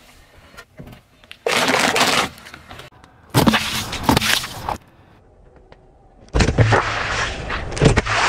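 A car tyre rolling over and crushing plastic food packages and toys on asphalt: three separate bouts of cracking and crunching, the last with a low rumble under it.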